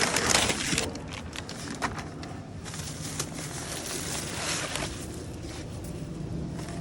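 Steady rush of road and rain noise inside a moving car, over a low engine hum, with a louder surge of noise in the first second and a few light clicks.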